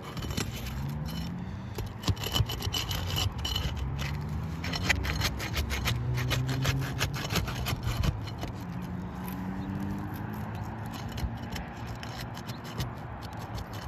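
Repeated scraping and rasping of a tool worked under an asphalt roof shingle to break its seal strip, with many short scrapes and clicks.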